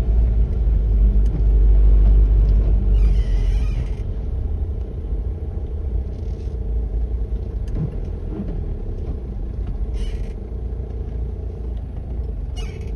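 Low, steady rumble of a car driving, a little louder in the first few seconds, with a few brief rustling noises on top.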